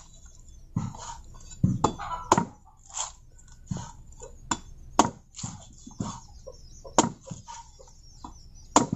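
A blade chopping repeatedly into a young green coconut to open it: about a dozen irregular strikes, some sharp and loud, others duller.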